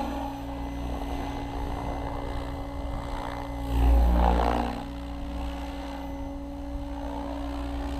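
Goblin 700 radio-controlled helicopter in flight, with a steady hum and whir from its rotor. It swells louder for about a second about four seconds in.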